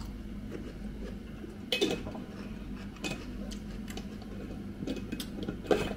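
A metal utensil clinking and knocking against a glass pickle jar as gherkins are fished out. There are scattered light ticks and a sharper knock about two seconds in and again near the end.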